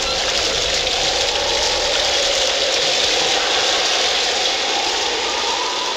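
Recorded rain sound effect: a steady hiss of heavy rainfall with a slowly wavering rush underneath.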